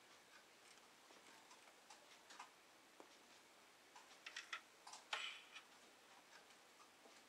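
Near silence with faint, scattered ticks and clicks, a quick run of them about four seconds in and a short, louder rattle about five seconds in.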